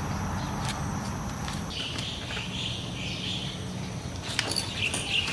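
Outdoor background with birds chirping over a steady low hum, and a few sharp taps or steps near the end.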